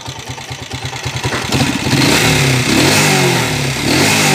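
Honda TMX 155 single-cylinder four-stroke engine running, idling with even pulses and then revved up and down from about a second and a half in. It is misfiring, and it has the clacking 'lato-lato' engine noise that the mechanic puts down to a worn timing gear.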